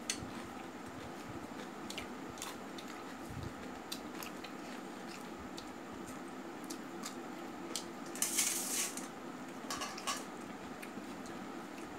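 Close-up eating sounds: fingers mixing rice and curry on a steel plate with scattered light clicks against the metal, and chewing. A brief louder rustle comes about eight seconds in, over a steady low fan hum.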